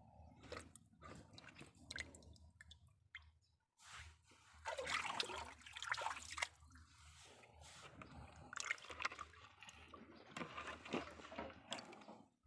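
Water splashing and dripping in irregular bursts, with wet squelching and small clicks. The bursts are loudest about halfway through and again near the end.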